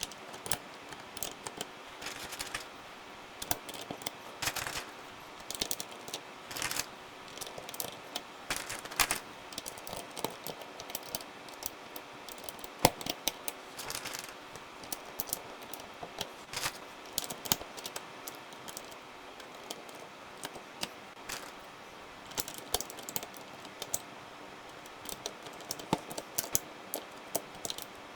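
Irregular plastic clicks and clacks from a Royal Kludge RK100 mechanical keyboard with brown tactile switches, its keys and keycaps being worked by hand, a few clacks much louder than the rest.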